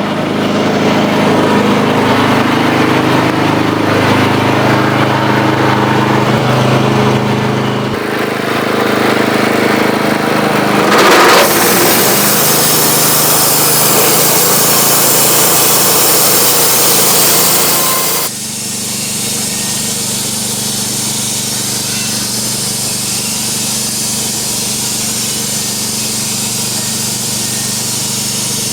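Wood-Mizer portable band sawmill running, its engine humming steadily throughout. About eleven seconds in a loud hissing rush of the band blade cutting through wood comes in. It stops abruptly a little past the middle, leaving the engine running on.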